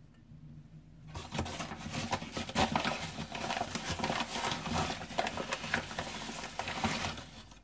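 Rustling and scraping with many small clicks, starting about a second in and stopping near the end: a measuring cup scooping the next cupful of flour out of its container.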